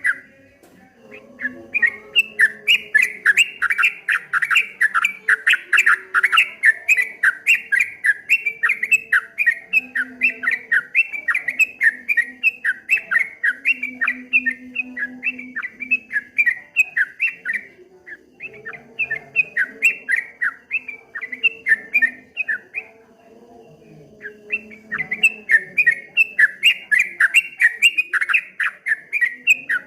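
Yellow-vented bulbul (trucuk kebo) singing a fast run of repeated chattering notes, about four a second, in long bursts broken by a few short pauses.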